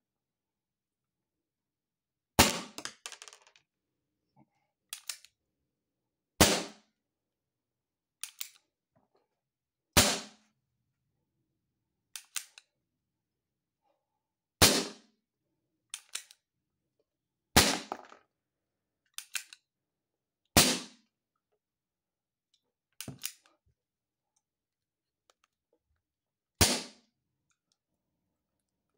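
Barra Schofield CO2 BB revolver firing pellets: about seven sharp pops a few seconds apart, with quieter clicks between shots as the single-action hammer is cocked. The gun is dieseled with a combustible agent, which the owner says gives it more pop.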